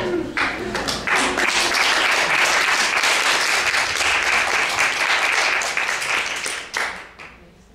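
Audience applauding. A few scattered claps turn into full applause about a second in, then it dies away shortly before the end.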